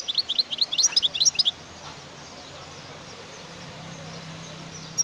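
European goldfinch singing: a quick phrase of rapid, high twittering notes lasting about a second and a half, then a pause, with the next phrase starting just at the end.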